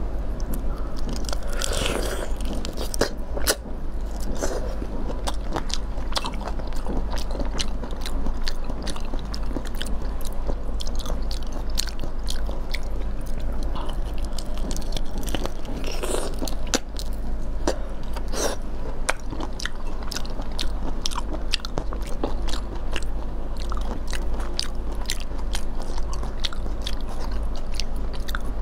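Close-up eating of raw shrimp in chili sauce: wet bites and chewing, with shells being pulled apart and crunched, giving many small sharp clicks and crackles over a steady low hum.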